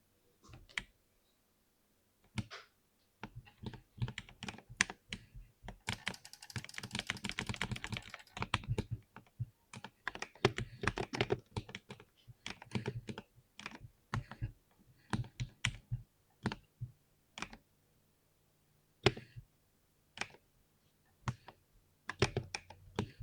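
Typing on a compact 60% keyboard: scattered key presses, a fast dense run of keystrokes from about six to eight and a half seconds in, then slower, spaced single presses with short pauses between.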